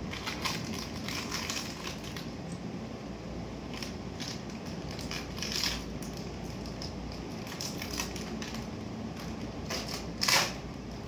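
Crackling, crunching handling noises as something small is worked by hand with a kitchen knife, with scattered light clicks and one louder short scrape about ten seconds in.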